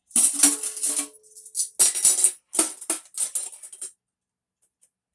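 Rattling and clattering of kitchen containers being handled, in a string of sharp bursts over about four seconds, with a brief ringing note near the start.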